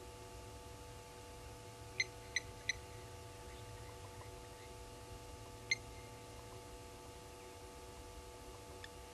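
Blacksmith lapwing's sharp metallic 'tink' calls, the alarm it gives at a raptor: three quick notes about two seconds in, a single one a few seconds later and a faint one near the end. A faint steady hum runs beneath.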